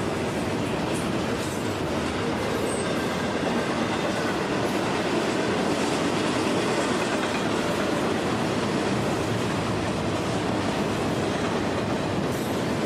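Cars of a long freight train rolling past, a steady noise of steel wheels on rail.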